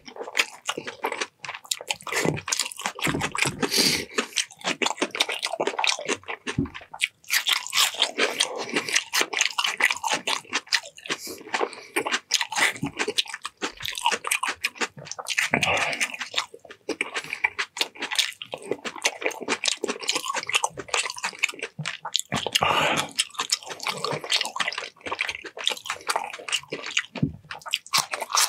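Close-miked mukbang eating: a person chewing and biting food, with wet, smacking chews and crunchy bites in a continuous irregular stream.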